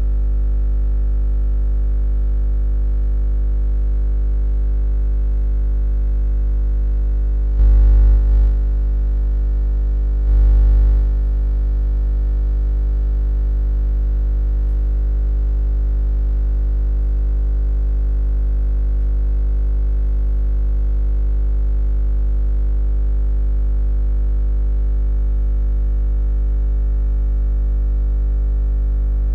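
A steady low hum with a stack of buzzing overtones that holds unchanged throughout, swelling louder briefly twice, about 8 and 10 seconds in.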